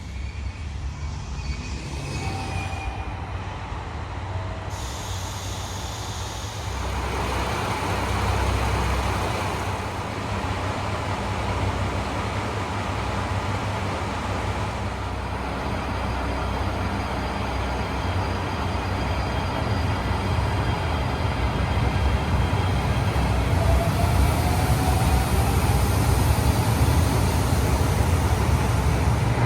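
A train running on the rails: a low steady rumble with broad wheel noise that swells about seven seconds in and keeps getting louder toward the end.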